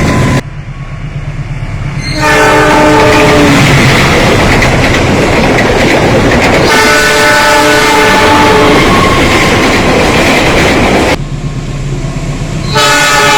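Train horns sounding the semboyan 35 warning signal in three multi-note blasts, a short one, a longer one and a third near the end, over the loud rush and wheel clatter of passing trains. The sound drops away abruptly twice, where separate trains are cut together.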